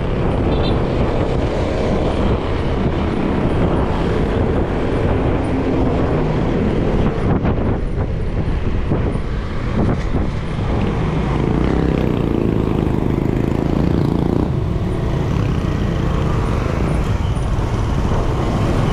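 Steady low rumbling road noise with no clear events.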